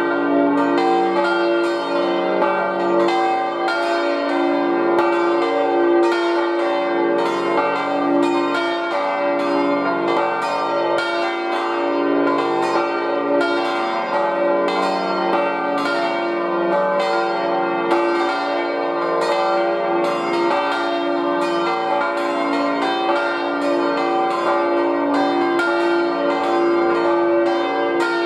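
Full peal of five swinging church bells tuned d', f', g', b' and c'', four of them cast by Rüetschi of Aarau in 1956 and one in 1834, all ringing together in a continuous overlapping stream of strokes. This is the ringing that calls people to the Sunday service.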